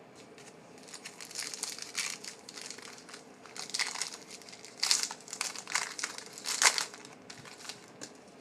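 Foil trading-card pack wrapper crinkling as it is torn open and crumpled, in a run of irregular crackles that are loudest about five and seven seconds in.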